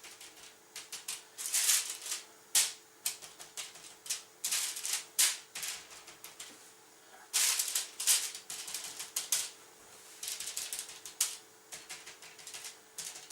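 Hands squeezing and patting raw minced beef into small sticks: a string of short, irregular squishes and pats. A faint steady hum sits underneath.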